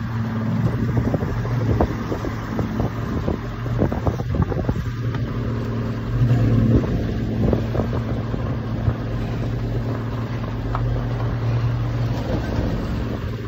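A boat's engine running with a steady low hum, under wind and water noise and scattered short knocks.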